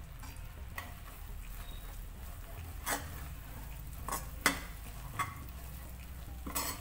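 A steel ladle stirs grated raw mango cooking in sugar syrup and ghee in a metal kadhai. There is a steady low sizzle, and the ladle clinks sharply against the pan about six times, loudest about halfway through.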